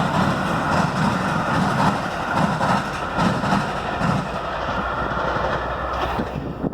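Metra commuter train passing at speed, its wheels clacking in a steady rhythm of about two beats a second over rail joints. The noise drops off suddenly near the end.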